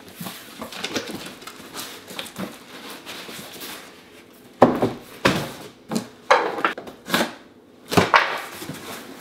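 Cardboard rustling and scraping as a boxed microscope is drawn up out of its shipping carton, then a run of sharp cardboard knocks and thumps, the first about halfway through the loudest, as the boxes are handled and set down on a wooden table.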